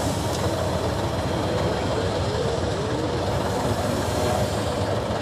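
Praga 6x6 trial truck's engine running steadily at low revs as the truck crawls slowly over a steep dirt mound.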